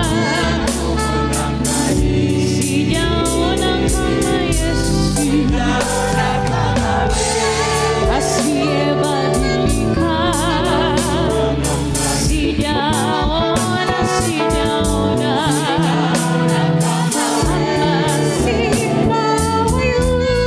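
Gospel worship song sung in Swahili: several voices singing with vibrato over a backing band with a steady bass line and drums.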